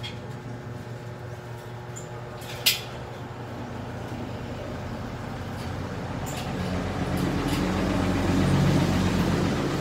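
A motor vehicle's engine rumbling, growing louder over several seconds and loudest near the end, over a steady low hum; a single sharp click nearly three seconds in.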